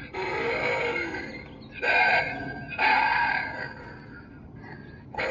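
Spirit Halloween 2011 Twilight Twitcher zombie animatronic playing recorded zombie growls and groans through its speaker. Three loud ones come near the start, a little under two seconds in, and about three seconds in, each fading away.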